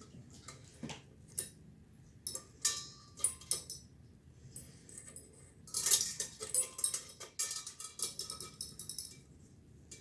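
Small metal parts clinking and rattling as they are handled, in irregular bursts that are busiest around the middle and latter part, with some brief metallic ringing.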